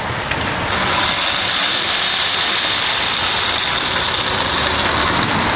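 Sawzall reciprocating saw switched on about a second in and running steadily, a high whine over a buzzing rattle, until near the end.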